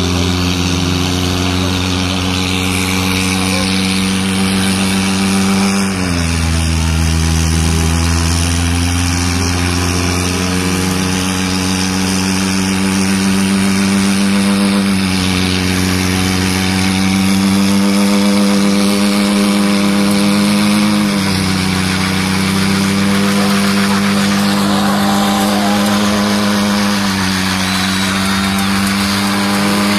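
Renault hatchback's engine held at high revs through a burnout, the pitch stepping down and back up a few times, over the noise of the spinning tyres.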